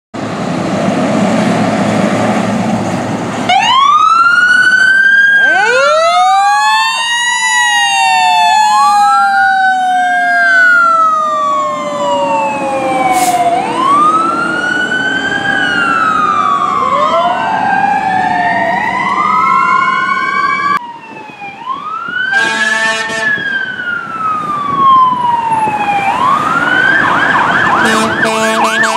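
Fire truck sirens. After a few seconds of engine and road noise, a siren wails in long sweeps, each rising quickly and falling slowly, several overlapping. Later a deep air horn sounds, and near the end the siren switches to a fast yelp with another horn blast.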